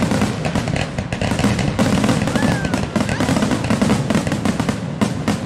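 Fireworks barrage: a dense, unbroken run of rapid bangs and crackles overlapping one another.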